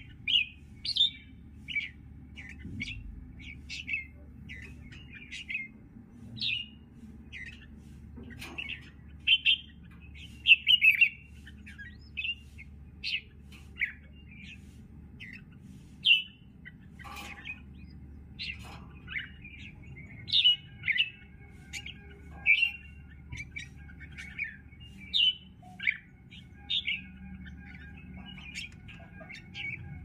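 Bulbuls calling: short, bright chirping notes roughly one a second, some much louder than others, over a faint low background hum.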